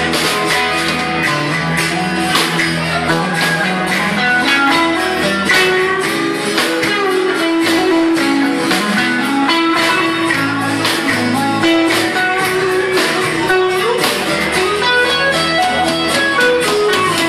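Live rock band playing an instrumental passage: electric guitar over a strummed acoustic guitar, with bass guitar and a drum kit keeping a steady beat.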